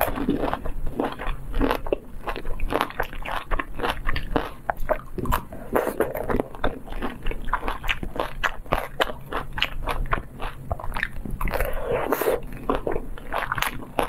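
Close-up crunching and chewing of tanghulu, the hard sugar glaze on the candied red fruits cracking in many quick, irregular crackles.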